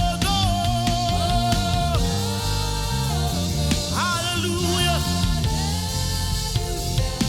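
Live worship band music: a steady bass and drum groove under a long, held melody line that slides and bends between notes.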